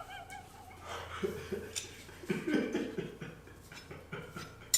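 A man's quiet, indistinct vocal sounds between sentences, with a single sharp click near the end.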